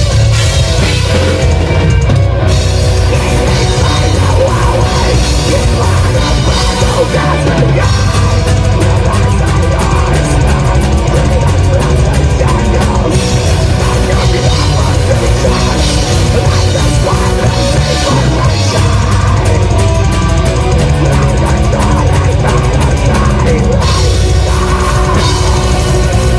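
A black metal band playing loud and dense: distorted guitars over fast, continuous drumming with heavy bass drum.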